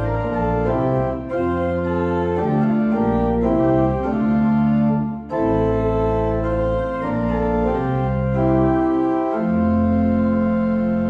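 Church organ playing sustained chords over a deep bass line, the chords changing every second or so, with a brief break about five seconds in.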